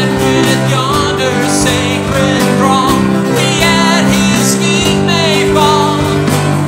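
A man singing a hymn, his voice wavering with vibrato on held notes, over strummed acoustic guitar and sustained keyboard chords.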